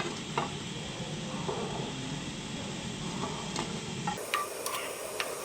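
Hot oil sizzling steadily in a frying pan as a batch of potato bites is lifted out, with a few light clicks of a utensil against the pan.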